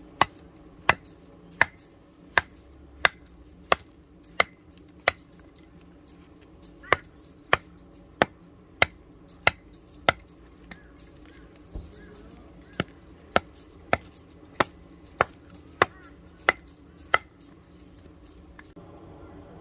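Kitchen knife chopping on a cutting board in evenly spaced single strokes, about one and a half a second, in three runs with short pauses between them.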